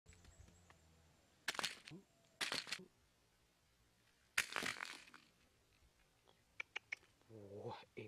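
Handling of a rattan basket trap and a plastic bottle of grain bait: three short rustling, rattling bursts, then a few light clicks. Near the end comes a short call with a wavering pitch.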